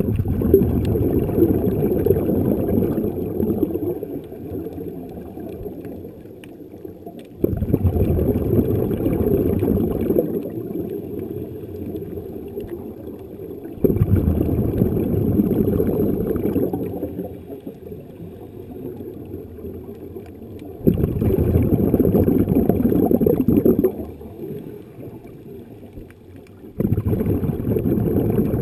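Exhaled air bubbling out of a diving regulator, heard underwater: five rushing, gurgling bursts of about three seconds each, one every six to seven seconds, in time with a diver's breathing.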